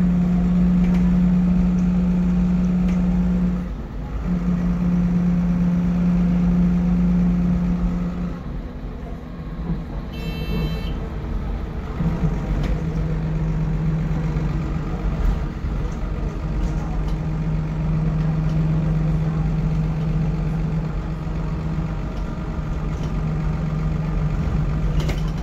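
MAN 18.240 bus's six-cylinder diesel engine and driveline heard from inside the saloon while driving, a steady droning tone over a low rumble that breaks off briefly about four seconds in, fades for a few seconds around the middle, and comes back a little lower. A short high stop-request chime sounds about ten seconds in.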